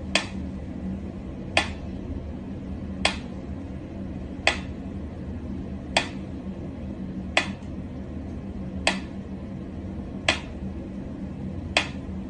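Mechanical pyramid metronome ticking slowly and evenly, about one tick every second and a half.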